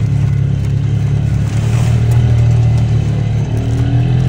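Side-by-side utility vehicle's engine running steadily as it drives along a dirt trail, its pitch rising slightly near the end.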